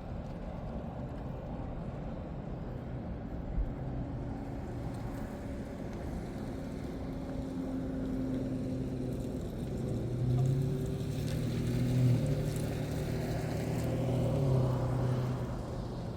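Motor vehicle running, a steady engine hum with road and wind noise, swelling louder from about ten seconds in and easing off near the end.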